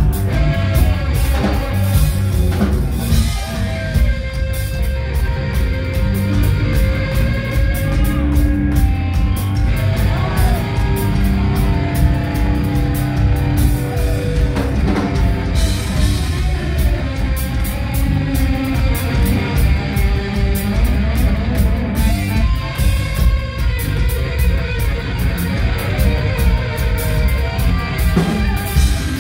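Heavy rock band playing live and loud: distorted electric guitars over bass guitar and drum kit.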